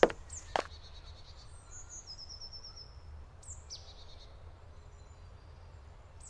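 Birds calling in a forest: a rapid run of high repeated notes about two seconds in and short falling chirps around three and a half seconds, over a faint steady low rumble. Two sharp clicks come in the first second.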